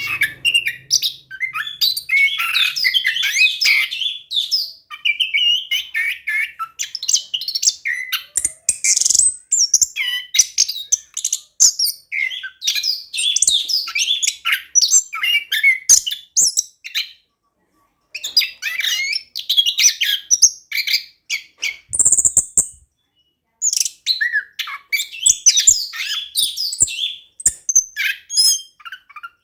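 Orange-headed thrush singing a long, rapid run of varied chirps and whistles, pausing briefly twice. This is the continuous rolling song ('ngeroll') that keepers play to bring other orange-headed thrushes into song.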